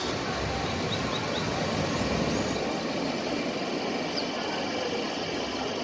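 Steady rushing noise of surf breaking on a sandy beach, mixed with wind on the microphone, with a few faint bird chirps.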